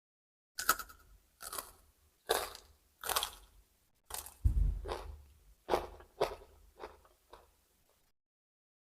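Close-miked crunching as someone bites and chews raw vegetables: about a dozen crisp crunches, roughly one every two-thirds of a second, with a heavier, deeper bite about four and a half seconds in.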